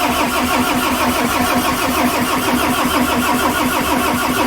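Volvo FH13's straight-six diesel being turned over on the starter motor in its first start attempt after a rebuild with new injectors, a loud, fast, even chugging with a steady starter whine.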